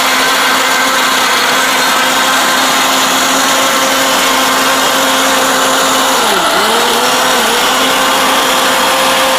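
Orpat mixer grinder's electric motor running at speed, grinding ginger and garlic with a little water in its stainless steel jar: a loud, steady whine. About six seconds in the pitch dips briefly as the motor bogs under the load, then comes back up.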